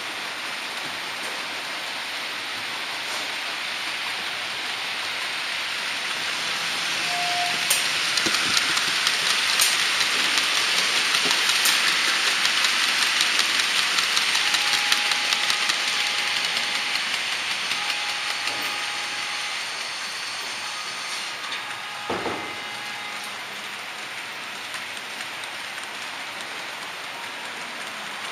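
HO-scale model freight train of tank wagons rolling past on the next track: a hiss of wheels on the rails with fine, rapid clicking that swells up, peaks about halfway through, and fades away, over a steady background hiss. A single sharp knock comes a couple of seconds after the train has passed.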